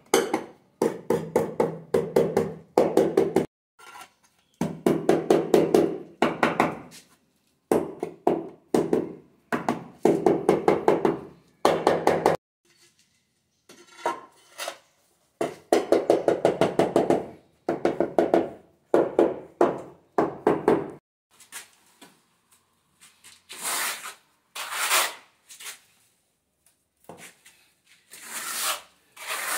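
Ceramic wall tiles being tapped to seat them in tile adhesive: rapid runs of ringing taps lasting a second or two, with short pauses between them. About two-thirds of the way through, the tapping gives way to a notched trowel scraping adhesive across a concrete wall in separate rasping strokes.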